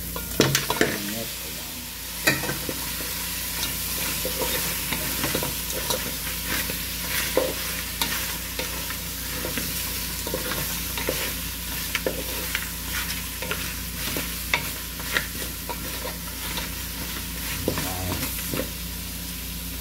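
Fried lamb pieces sizzling in hot oil with onions and spices in an aluminium pot, stirred with a wooden spatula that scrapes and knocks against the pot at irregular moments.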